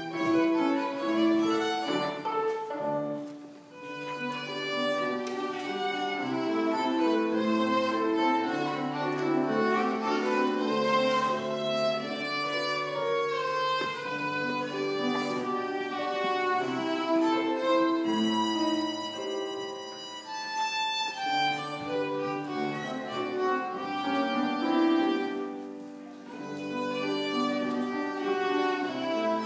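Solo violin playing a melodic classical piece with piano accompaniment, in sustained bowed phrases. The music eases off briefly about four seconds in and again near the end.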